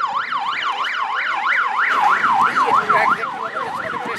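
Electronic siren in a fast yelp, rising and falling about four times a second, its sweeps slowing a little toward the end.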